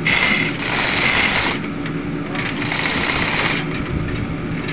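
Manual chain hoist being hauled hand over hand, its hand chain rattling and clicking through the hoist in pulls of about a second, every two seconds or so, as it lifts a load. A steady low machinery hum runs underneath.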